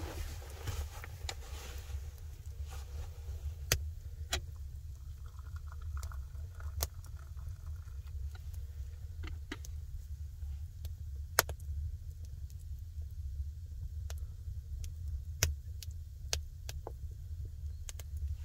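Wood fire crackling in a stone fireplace: sharp irregular pops every second or so over a steady low rumble.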